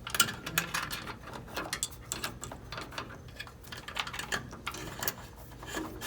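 Irregular light clicks and rustles of a car wiring harness being handled and routed by hand.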